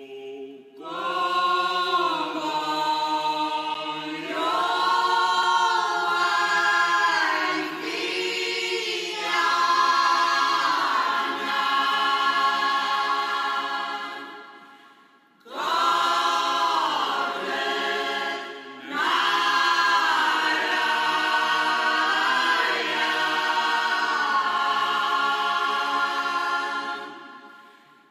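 A Minho folk choir of women and men singing unaccompanied in close harmony, in two long phrases, the voices dropping away briefly about halfway through and fading out near the end.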